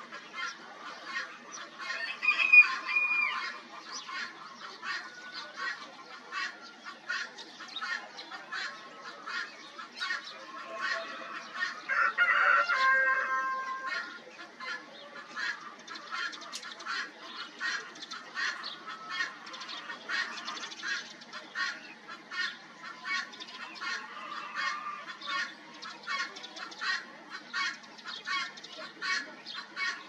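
Outdoor morning bird chorus: many birds calling in quick, overlapping chirps. A louder, drawn-out call rises above them about twelve seconds in, and a shorter one comes about two seconds in.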